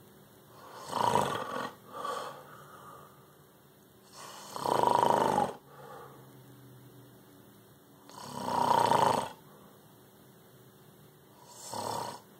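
A man snoring in his sleep, with a loud snore roughly every three to four seconds.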